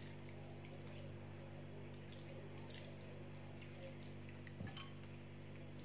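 Faint wet squelching and small sticky clicks of hands rubbing marinade into raw chicken pieces, over a steady low hum. A slightly louder wet smack comes about four and a half seconds in.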